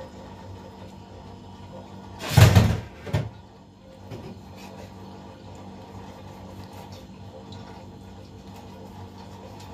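Two heavy knocks about three quarters of a second apart, the first louder and longer, over a steady low hum.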